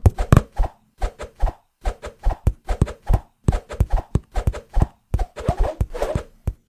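Cartoon sound effects for stick figures scuffling: a quick run of short thumps and taps, several a second, thickening into a busier clatter about five and a half seconds in.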